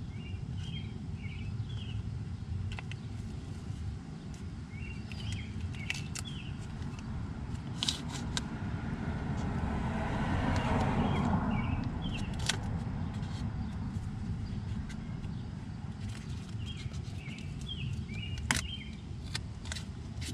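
Outdoor ambience with a steady low rumble and a car passing on a road, swelling and fading near the middle. A bird sings three short phrases of chirps, and a few small crinkles and clicks come from painter's tape being wrapped around a tie rod.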